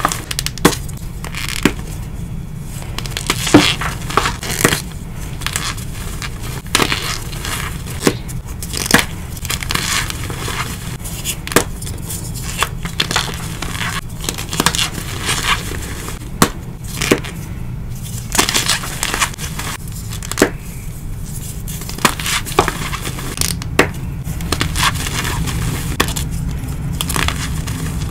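Rainbow-dyed gym chalk blocks coated in cornstarch squeezed and crumbled by hand: irregular crisp crunches and snaps over a dense crumbly crackle as the chalk breaks and the powder packs.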